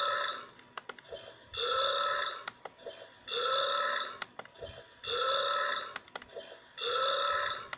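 A burp repeated identically about every second and three-quarters, five times, like a looped clip. Each burp lasts about a second and rises slightly in pitch, with short clicks in the gaps between them.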